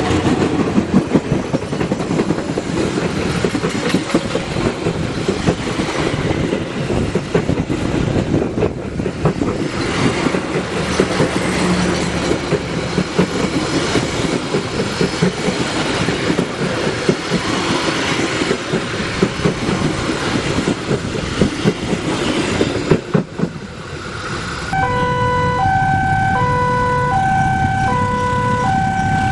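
Passenger train coaches passing close at speed, with wheels rumbling and clattering over the rail joints. After a short lull, an approaching diesel locomotive sounds its horn in two notes that alternate, each held under a second.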